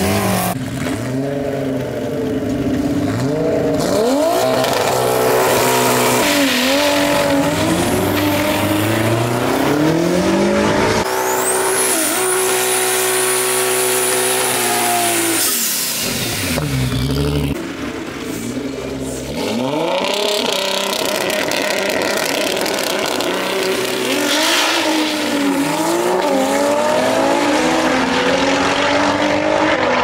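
Toyota Cressida's 2JZ inline-six engine revving hard again and again through a burnout, the pitch climbing and dropping, over a hiss of spinning tyres. About midway the revs are held high for several seconds with a thin high whine over them.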